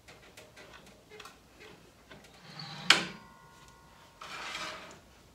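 Steel fence and straight edge being handled on a stopped table saw: small clicks and rubs, a sharp metallic clank with a short ring about three seconds in, then a scraping slide of a little under a second.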